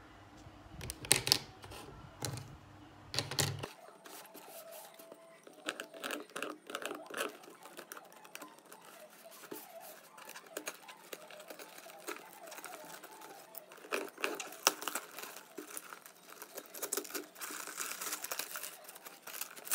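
Hard plastic cutlery cases clicking as they are handled, loudest about a second in and again about three seconds in. After that, a box cutter scrapes across the parcel's tape, and brown paper wrapping rustles, crinkles and tears as it is pulled open, busiest near the end.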